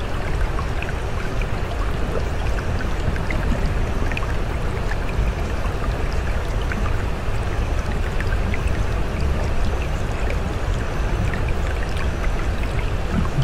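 Steady running water like a stream or brook: a continuous rush with a low rumble underneath and scattered small drips and splashes.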